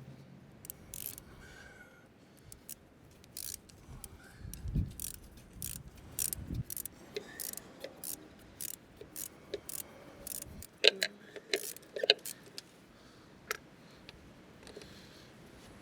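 Irregular metallic clicks and clinks of an 11 mm wrench tightening the nut of a new valve stem on a wheel rim, with a few dull knocks and some louder ringing clinks about two-thirds of the way in.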